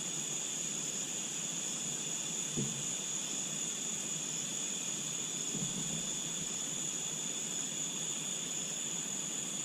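Steady chorus of night insects, crickets among them, a continuous high shrill, with two faint soft knocks in the first half.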